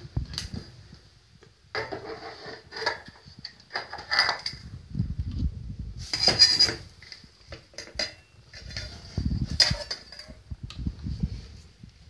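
Irregular knocking, rustling and clinking of kitchen metalware such as a kettle, pot lids and cutlery, in clusters of a second or so, the loudest a little past halfway, over a low rumble from the phone being handled.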